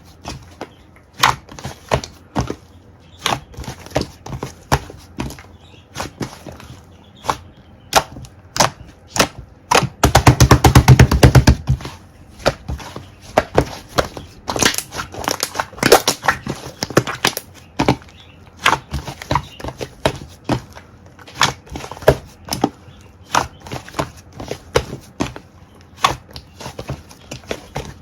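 Clay slime being squeezed and pressed by hand, giving irregular crisp clicks and pops, with a fast run of pops a little past ten seconds in.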